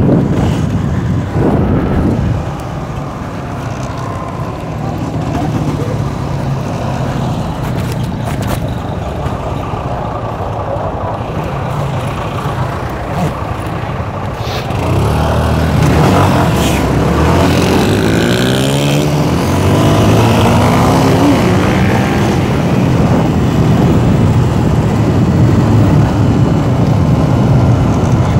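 Motorcycle engine running while riding. About halfway through it gets louder, and its note climbs and drops several times as the bike accelerates and shifts up through the gears.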